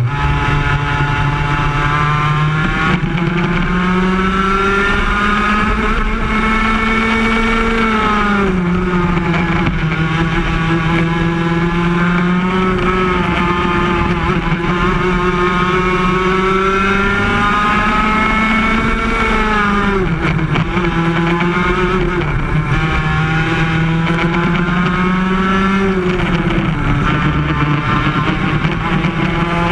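Yamaha KT100 two-stroke kart engine at racing speed, heard onboard the kart. Its pitch climbs steadily down each straight and falls off sharply as the kart slows for a corner, four times over.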